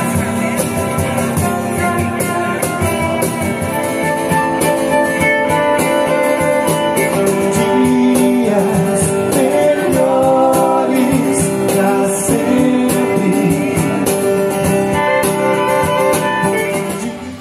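Live acoustic trio of violin, acoustic guitar and cajon playing: the violin bows long held notes over strummed guitar chords and a steady cajon beat.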